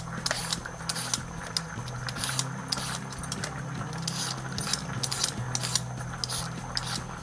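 Vegetable peeler scraping down a raw carrot in quick, irregular strokes, about two or three a second, over a low steady hum.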